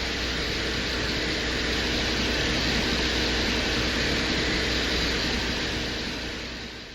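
Steady rushing hiss over a low hum, fading near the end: the audio presented as a Soviet Venera probe's microphone recording from the surface of Venus.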